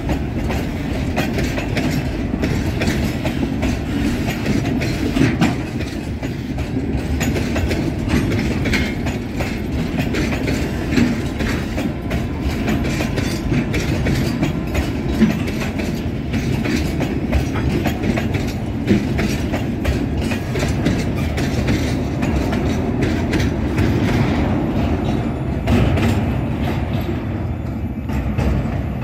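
Freight train of loaded container flatcars rolling past: a steady rail rumble with frequent clicks and knocks of the wheels over the rail joints.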